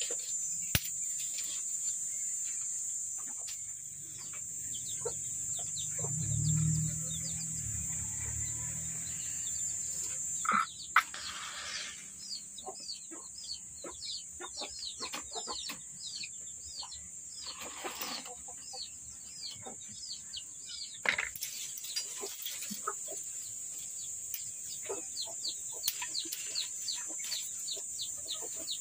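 Small birds chirping in quick, falling notes, thickest from about a third of the way in, over a steady high hiss. A few sharp snaps of dry twigs being broken by hand.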